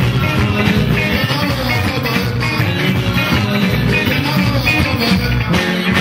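Live band music: electric guitar over bass and a steady drum beat.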